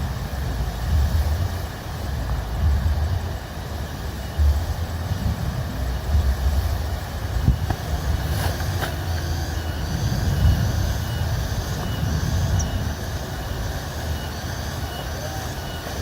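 Strong wind gusting over the microphone with a low, uneven rumble, over a steady hiss of rain. From about halfway through, faint high chirps repeat at an even pace.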